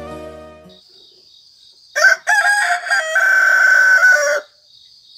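A rooster crowing once, loud, starting about two seconds in and lasting about two and a half seconds, over a faint steady high trill. Soft background music fades out in the first second.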